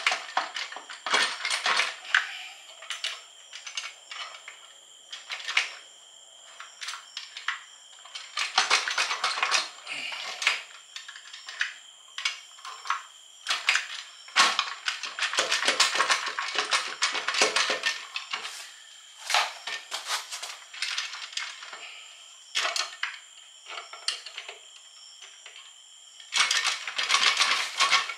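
Aluminium case half of a Honda Civic Hybrid CVT being rocked and worked loose by hand: bursts of rapid metallic clinks and knocks as the sticky case half shifts against the transmission.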